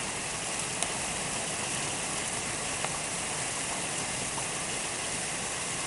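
Heavy rain pouring down onto a garden and patio, a steady hiss with a couple of faint ticks.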